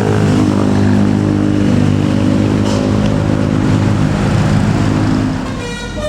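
Tour bus's diesel engine running loudly as it passes, a steady low engine note that fades a little about five seconds in. Just before the end a multi-tone telolet horn starts sounding.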